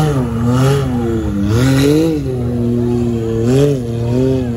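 Side-by-side UTV engines revving hard through deep mud water, the pitch rising and falling several times as the throttle is worked, with bursts of splashing from the spray.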